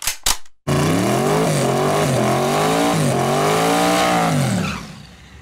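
A car engine revving up and down several times, its pitch rising and falling, then fading away near the end. Two short sharp bursts come just before it.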